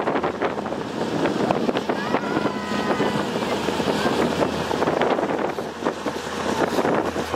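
Motorboat engine running steadily while it tows a parasail, with wind blowing across the microphone and water rushing in the wake.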